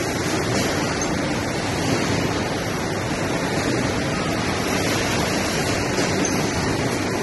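Steady rushing din of automated packaging-line machinery running, loud and even, with no single rhythm or tone standing out.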